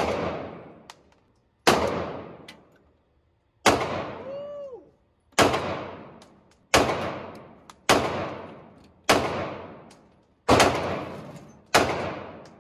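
Semi-automatic pistol fired nine times in slow, deliberate succession, about one to two seconds apart. Each shot echoes briefly in the enclosed indoor range lane.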